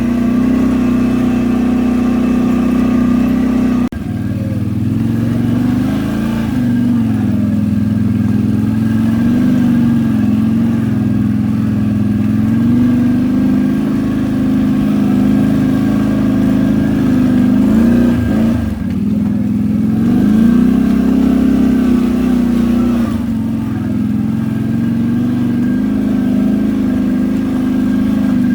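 ATV engine running under load, its pitch rising and falling repeatedly as the throttle is worked over rough ground, with a sudden break about four seconds in.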